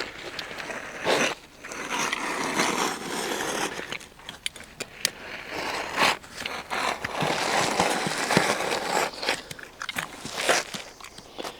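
Bitumen roofing felt being cut along a marked line and handled, making uneven crunching and scraping noises with sharp crackles and clicks.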